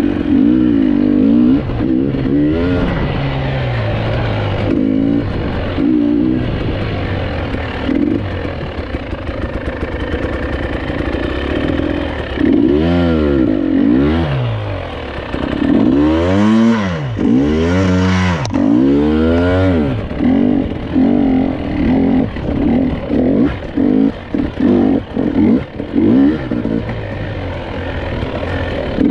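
GasGas EC 300 TPI two-stroke enduro motorcycle being ridden, its engine revving up and down with the throttle. In the middle it sweeps sharply up and down in pitch several times in quick succession, then runs on with choppier blips.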